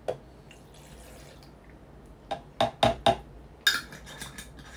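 Coconut water poured from a glass jar into a blender jug, a faint trickle, followed by four quick knocks of glass about two seconds in and a sharper, brighter clink a little later.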